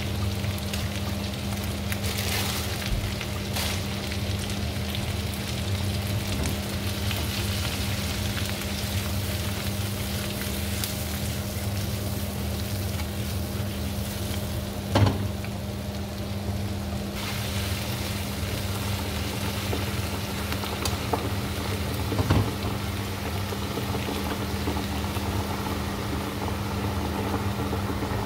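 Baby spinach, tomato and onion sizzling in a frying pan over a gas burner, with a steady low hum underneath. A sharp knock about halfway through as the pan is tossed, and another a few seconds later.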